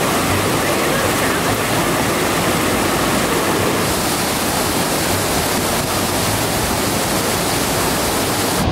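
Loud, steady rushing of a rain-swollen rocky river, its whitewater cascading over boulders.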